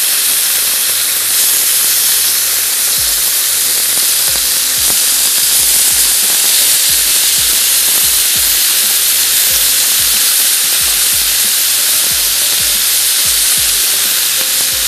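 Boneless chicken pieces in a sauce marinade frying on a grill pan, with a steady, loud sizzle as the pieces are turned with a fork.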